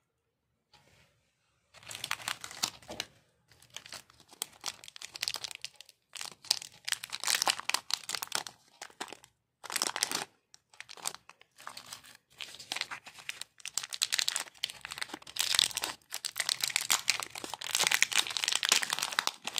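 Foil-lined plastic chocolate bar wrappers being crinkled and torn open by hand, crackling in bursts with short pauses, starting about two seconds in.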